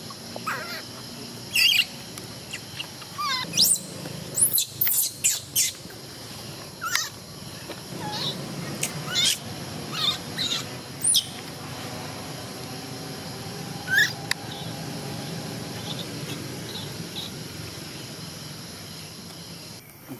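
Baby monkey squealing in short, high-pitched cries, many in quick succession in the first half and a few more later, the last about two-thirds of the way through.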